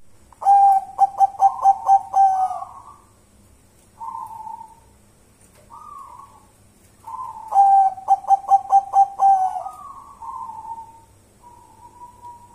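Zebra dove (perkutut) singing. It gives two phrases of about seven quick staccato coos, each ending in a longer drawn-out note, with softer single coos between and after them.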